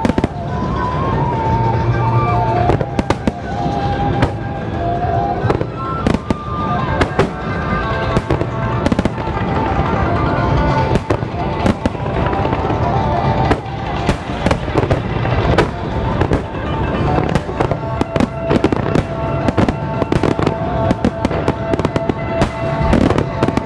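Starmine fireworks barrage: many shells bursting in quick, irregular succession as sharp bangs, growing denser in the second half, over music played for the show.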